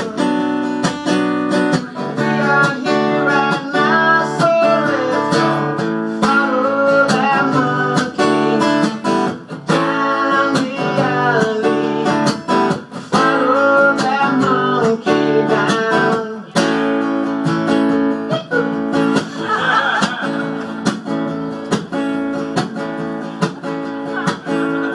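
Acoustic guitar played live mid-song, strummed chords with picked melodic lines over them.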